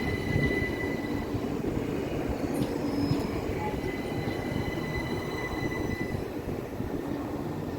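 Electric commuter train running on the rails through the station: a steady rumble of wheels on track, with thin high-pitched tones over it.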